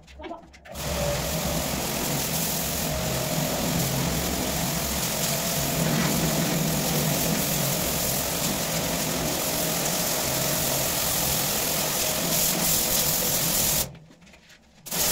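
Pressure washer running, its water jet hissing against concrete tank walls, with a steady motor hum underneath. It starts suddenly about a second in, stops abruptly near the end and starts again just before it ends.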